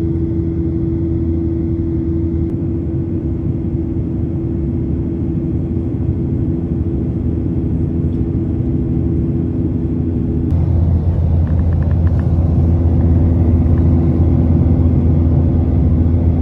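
Steady in-flight cabin drone of a Boeing 737-800, engine and airflow noise with a steady hum. About ten seconds in the sound shifts abruptly and becomes slightly louder.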